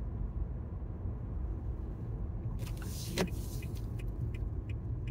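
Steady low rumble of a car driving, heard from inside the cabin. About halfway through there is a brief swell of hiss, and a run of light ticks comes near the end.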